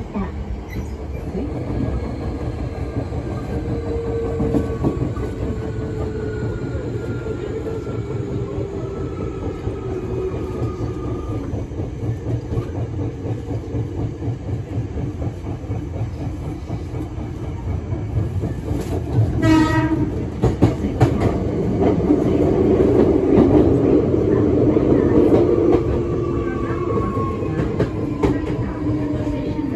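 In-car running sound of a Hankyu 8300 series car carrying a Toyo Denki hybrid SiC VVVF test inverter with random modulation. The traction motor and inverter tones fall slowly in pitch over a steady rumble of wheels on rail, and there is a short horn blast about twenty seconds in. The running noise then grows louder for a few seconds.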